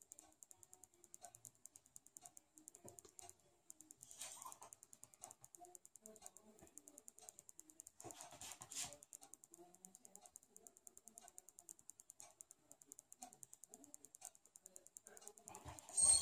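A dog eating: faint, irregular small clicks and crunches, with a louder burst about four seconds in, another near the middle, and the loudest at the very end.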